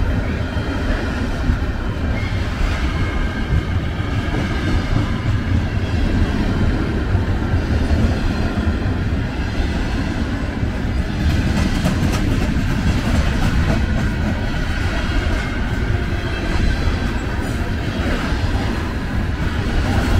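CN freight train of covered hopper cars rolling past at a level crossing, its cars and wheels on the rails making a steady, mostly low rumble.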